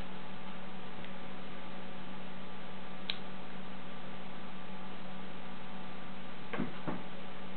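Steady electrical hum with background hiss, broken by a single light click about three seconds in and two small knocks near the end from small parts of a paintball marker's RAM being handled during assembly.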